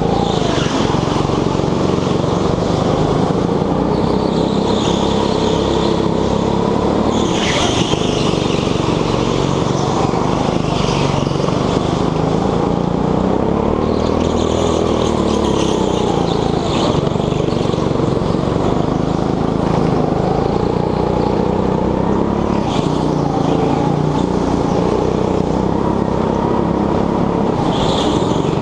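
Petrol go-kart engine heard from on board, its pitch rising and falling again and again as it revs up and drops off through the laps. A few short higher-pitched bursts cut in over it.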